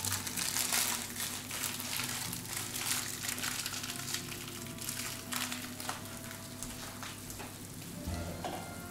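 Cream sauce boiling hard in a wide pan, a dense crackle of bursting bubbles as it foams up. It is being reduced at high heat towards a coating (nappe) consistency.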